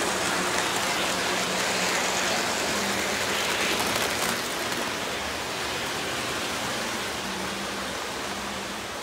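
Lionel O-gauge model train rolling on three-rail tubular track: a steady metallic rushing of wheels on rails with a low motor hum coming and going, easing off over the last few seconds as the train moves away.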